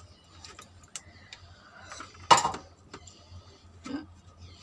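Small clicks and taps of eating by hand, as fingers work rice and vegetable curry on a plate, with mouth sounds. A sharper click comes a little past halfway.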